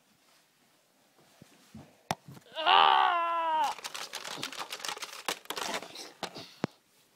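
A young person's voice crying out in one held, drawn-out yell of about a second that drops in pitch at its end, followed by a few seconds of rustling and clicking as the camera is jostled.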